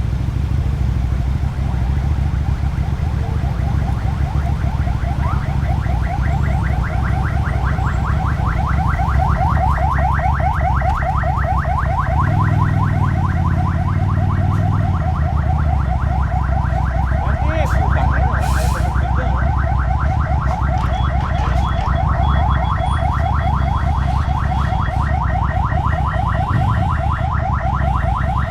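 Car alarm sounding a fast, evenly repeating electronic warble of short rising sweeps, about five a second, that sets in a few seconds in. Under it runs the low, steady rumble of a motorcycle engine, which rises briefly near the middle.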